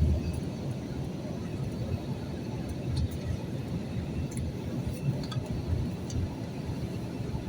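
Steady low rumble of an airliner's engines and airflow heard inside the passenger cabin during the descent for landing, with a few faint clicks.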